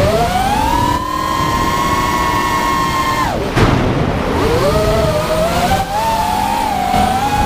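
Whine of a 5-inch FPV racing quadcopter's brushless motors (Rotorgeeks 2204 2300kv with HQ 5040 tri-blade props), picked up by the onboard camera. The pitch rises at the start and holds, drops sharply about three and a half seconds in as the throttle is cut for a flip, then climbs back and wavers with the throttle.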